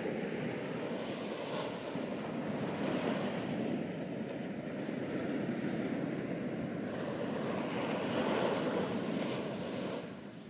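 Small waves breaking and washing up on a sandy beach: a steady rush of surf that swells twice and eases off near the end.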